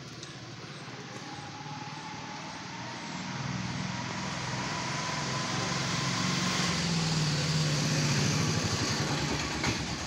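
A passing motor vehicle, its engine sound growing steadily louder and loudest about eight seconds in, with a faint whine that climbs slightly in pitch.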